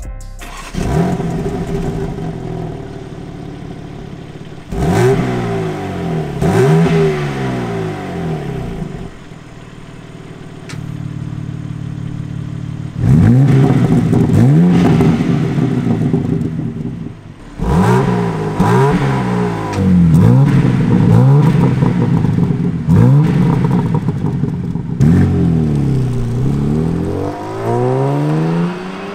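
BMW G80 M3's S58 turbocharged 3.0-litre inline-six heard through its exhaust with the exhaust valves open, idling and then revved again and again, each rev rising and falling in pitch. The revs grow louder and come in quick succession from about halfway in.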